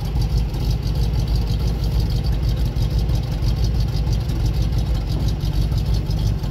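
GAZ-53 truck's V8 petrol engine idling steadily with the power take-off engaged, driving the hydraulic pump that starts raising the tipper body.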